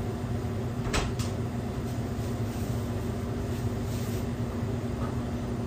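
Steady mechanical hum of commercial restaurant kitchen equipment, with a faint click at the start and another about a second in.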